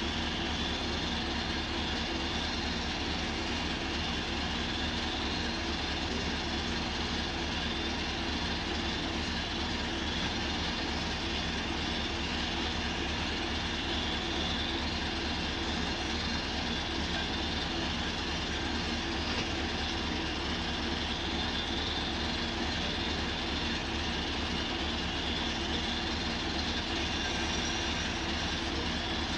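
Truck-mounted water-well drilling rig's engine running steadily, with a low, even throb that does not change.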